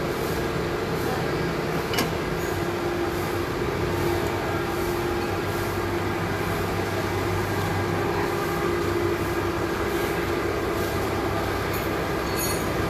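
CNC milling machines running with a steady mechanical hum and a few steady tones, and one sharp click about two seconds in.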